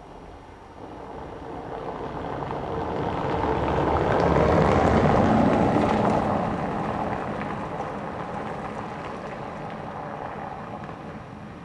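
A car driving past over the cobbled road, its engine and tyres on the cobblestones rising to a peak about halfway, then fading as it drives away up the hill.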